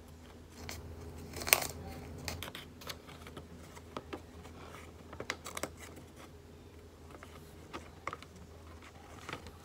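A sheet of paper being handled, folded and creased by hand: scattered short crinkles and rustles with light taps, the sharpest about a second and a half in.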